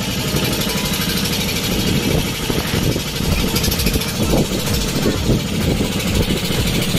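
Boat engine running steadily with a rapid low chugging.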